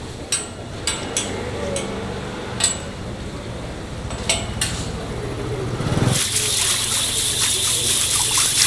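Garden hose spray nozzle hissing as water jets onto hanging giant octopus tentacles, starting suddenly about six seconds in. Before that, a few sharp clicks as the tentacles are handled on their metal hooks.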